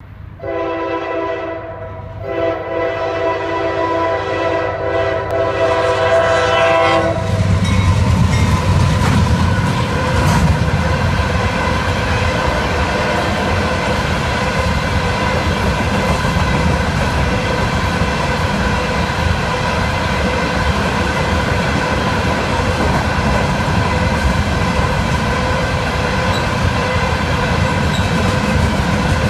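Freight diesel locomotive's air horn sounds two blasts for the road crossing, a short one and then one held about five seconds. From about seven seconds in the locomotive passes close with a loud low rumble, then a string of coal hopper cars rolls steadily by with clickety-clack from the wheels over the rail joints.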